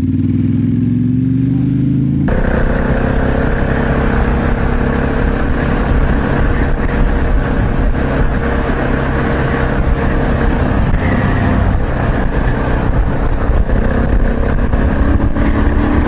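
Motorcycle engine running steadily under heavy wind rush on a helmet-mounted microphone while riding at road speed. The sound changes abruptly about two seconds in.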